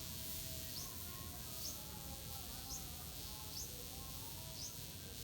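A wasp buzzing in short, wavering bouts while its droopy wings fail to lift it, the pitch of the buzz drifting up and down. Short high chirps sound about once a second behind it.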